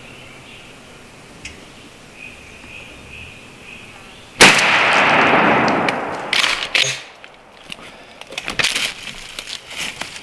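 A single shotgun blast about four seconds in, very loud, with a second or so of rolling echo through the woods. It is followed by irregular crackling and rustling in dry leaves and sticks.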